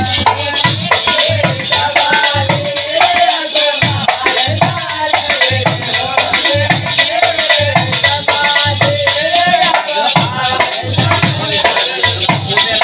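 Live Bundeli folk music: a hand-played barrel drum beats a steady rhythm under a high singing voice, with a bright rattling percussion running throughout.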